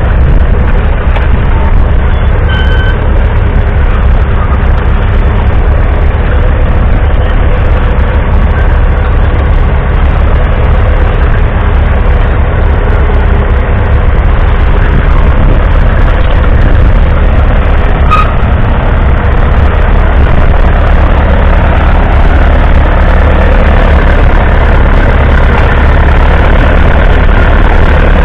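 1970 Zetor 4511's 3.1-litre four-cylinder diesel engine running steadily under load while it pulls a mounted plough through the furrow. A single sharp click sounds about eighteen seconds in.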